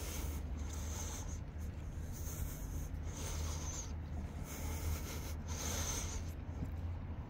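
Footsteps in socks on wet, rough asphalt: each step a soft scuffing rub, recurring about once a second over a steady low rumble.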